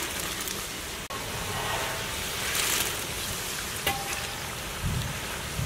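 Hot oil sizzling and bubbling as a large batch of French fries deep-fries in a big iron kadai, swelling briefly a little before the middle, with a couple of sharp clicks.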